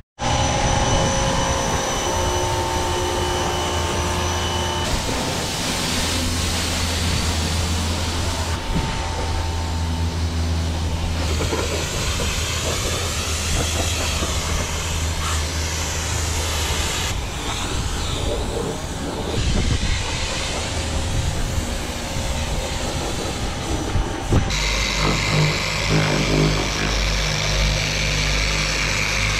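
Pressure washer spraying water onto a car body: a steady hiss of spray over the low hum of the pump, in several short cuts. About 25 seconds in, this gives way to an electric car polisher running against the paint with a steady motor hum.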